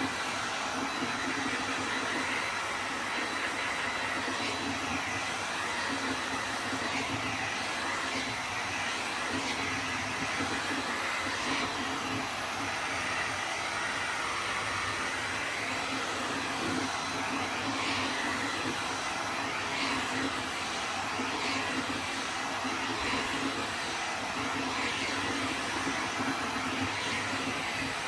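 Titan electric heat gun running steadily, blowing hot air onto a steel wheel to warm it before spray priming.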